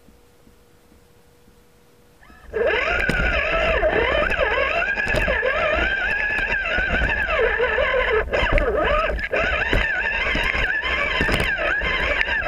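RC rock crawler's electric motor and gearbox whining as it drives over rocks, the pitch rising and falling as the throttle changes. It is quiet for the first two and a half seconds, then the whine starts, with scattered knocks from the tyres and chassis on the stones.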